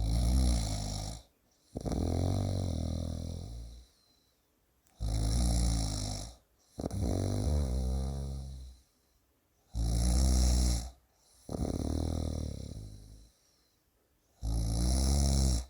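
A person snoring heavily, in the pig-like way the uploader calls it: about four breath cycles, each a short loud snore followed by a longer one, with a pause of about a second between cycles.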